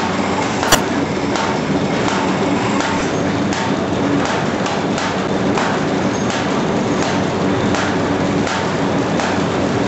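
Automatic paper bag making machine running: a steady mechanical clatter with a regular knock a little more than once a second, and one sharp click just under a second in.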